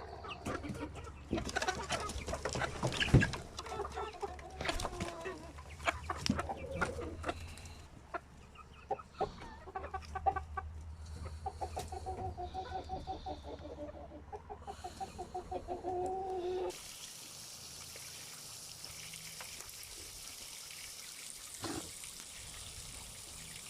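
Chickens clucking, with a run of rapid repeated clucks in the middle. About two-thirds of the way in the clucking cuts off and only a faint steady hiss remains.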